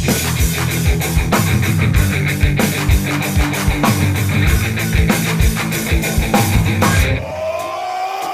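Loud up-tempo music with a steady, driving drum beat over held bass and chord tones. About seven seconds in, the drums drop out for a short break, leaving a held tone that slides in pitch.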